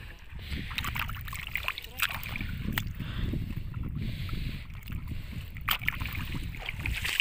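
Strong wind buffeting the microphone, a steady low rumble, with scattered short knocks and clicks through it.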